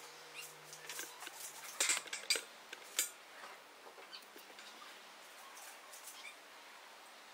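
Scattered light clicks and taps from small hard objects being handled on a workbench. The loudest are a cluster of sharp clicks about two seconds in and a single click at three seconds, after which it goes quieter.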